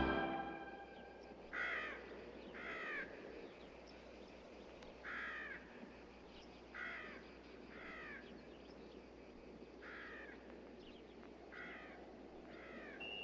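Crows cawing: eight short single caws, spaced irregularly a second or more apart, over a faint steady hiss of open-air ambience.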